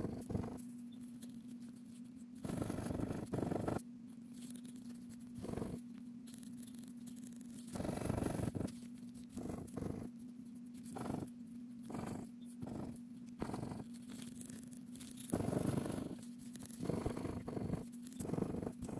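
Plastic scratcher scraping the coating off a scratch-off lottery ticket in short irregular bursts of strokes, some lasting about a second, over a steady low hum.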